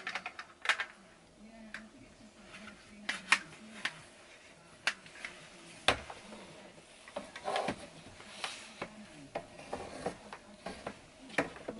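Handling clatter of a roller blind being test-fitted into a wooden batten casing: scattered light clicks and knocks as the blind and wood strips are knocked and pressed together.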